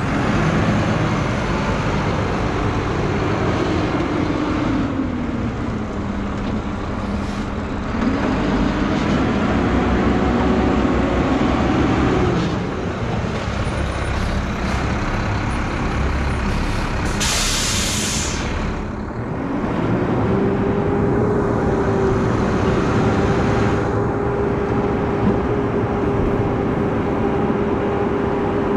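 Front-load garbage truck's engine running as it maneuvers slowly, its pitch rising and falling. A sharp hiss of the air brakes comes about seventeen seconds in, after which the engine holds at steady raised revs.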